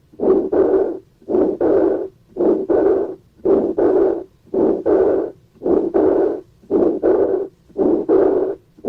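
Heart sounds heard through a stethoscope: the to-and-fro double murmur of aortic stenosis with aortic incompetence. Each beat brings a systolic murmur followed at once by a diastolic murmur, repeating at about one beat a second.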